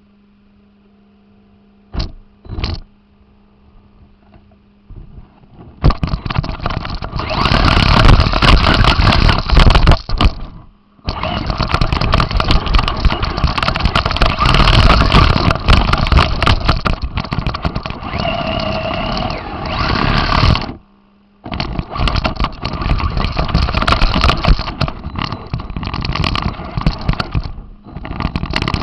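RC car driving over rough ground, picked up by the camera on board the car: a faint steady hum at rest with two short bursts about two seconds in, then from about six seconds loud, rattling, crackling drive noise that stops briefly a few times.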